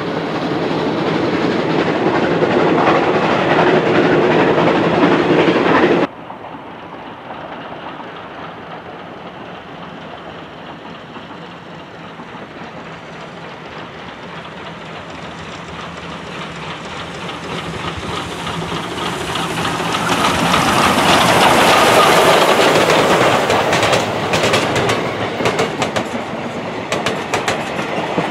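Passenger coaches of a steam-hauled train rolling past close by, with the clickety-clack of wheels over rail joints. About six seconds in the sound cuts to the train heard far off, growing steadily louder as it approaches, and quick wheel clicks come through near the end.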